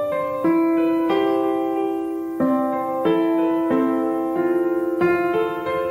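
Slow background piano music: sustained notes and chords, a new one struck about every half second to second.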